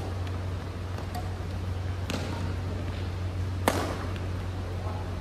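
Badminton racquets striking a shuttlecock during a rally: sharp hits about one and a half seconds apart, the second louder, with a few fainter ticks before them, over a steady low hum.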